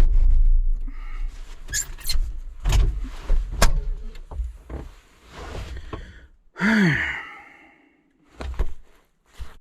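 An engine cuts off right at the start. A series of irregular knocks and thunks follows, and about seven seconds in there is a short tone that rises briefly and then falls.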